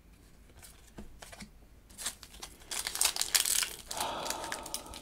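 Foil Pokémon booster pack wrapper crinkling and tearing as it is handled and opened, starting about two seconds in after a few faint clicks.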